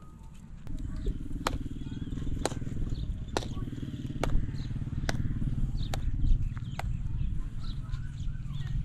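Sharp slaps about once a second as a ball of roti dough is patted out between the palms, over a steady low rumble that starts about a second in.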